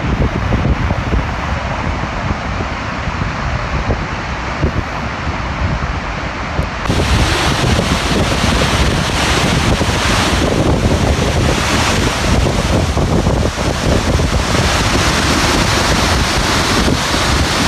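Dettifoss waterfall's heavy water rushing, a loud steady noise with wind buffeting the microphone. About seven seconds in it suddenly grows louder and brighter.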